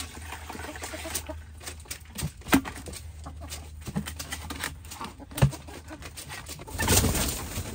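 Chickens clucking around a plastic bucket waterer as it is handled, with scattered taps and knocks on the bucket and its lid. Two sharp knocks come about two and a half and five and a half seconds in, and a short rush of noise comes near the end.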